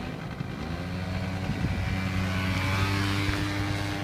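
Small motor scooter's engine picking up about half a second in as the rider pulls away, its pitch rising slightly and then holding a steady note as the scooter rides off.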